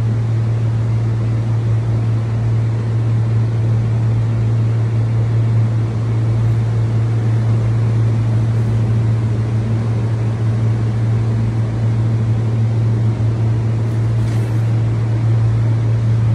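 Steady low hum of workshop machinery running continuously, with a constant background rush.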